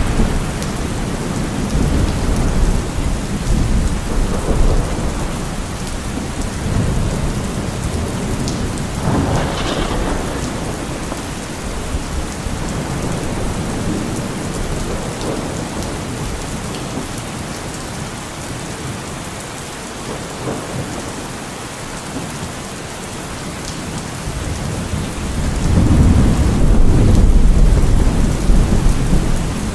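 Steady heavy rain with rolling thunder: low rumbles come and go, and a longer, louder roll of thunder swells up near the end.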